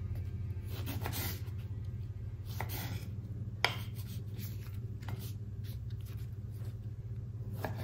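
Small knife cutting cherry tomatoes on a wooden cutting board: a few separate taps of the blade on the board, the sharpest about three and a half seconds in, over a low steady hum.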